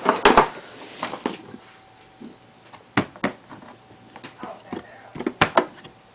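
Handling noise: a hand moving objects close to the microphone, giving several sharp knocks and clicks with rustling between them, the biggest just after the start, about three seconds in, and again near the end.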